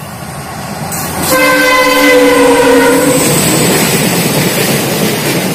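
Indian Railways diesel locomotive sounding its horn in one blast of about two seconds, starting about a second in, over the steady rumble and rattle of a moving train that grows louder at first.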